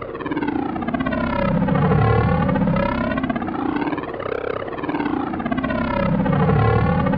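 Drone sound effect: a continuous buzzing hum with a phasing whoosh that sweeps down and back up about every four seconds.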